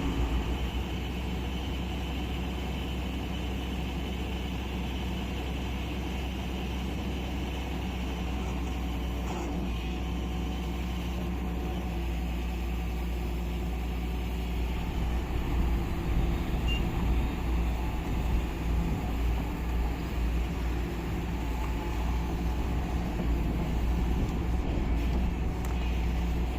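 A heavy construction machine's diesel engine running steadily, louder and more uneven from about halfway through.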